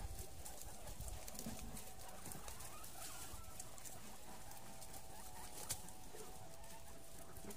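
Faint sounds from a guinea pig pen: scattered small rustling clicks, with a faint drawn-out wavering call that runs on for several seconds.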